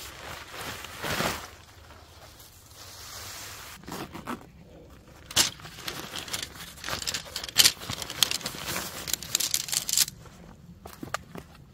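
Litefighter 1 tent fabric and its stuff sack rustling and crinkling as they are shaken out and handled, with a run of sharp clicks and rattles in the second half as the tent poles are pulled out.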